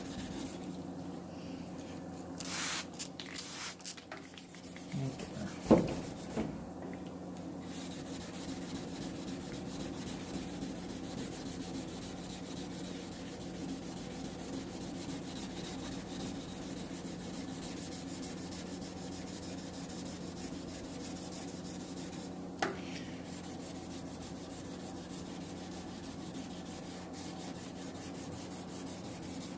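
600-grit wet sandpaper rubbing back the clear coat on a 1958 MGA's paintwork, a steady scuffing over a steady low hum. A sharp knock comes about six seconds in, and a smaller click a little after twenty seconds.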